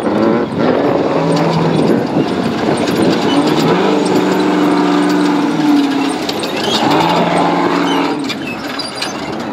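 Off-road race car engines running under a loud rushing noise. A pitched engine note stands out three times, about a second, four seconds and seven seconds in, and drops in pitch at the end of the middle stretch.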